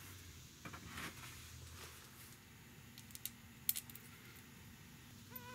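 Faint handling noises: light clicks and taps as a small metal oil drain plug and tools are handled, with one sharper click about three and a half seconds in. A steady buzzing tone starts just before the end.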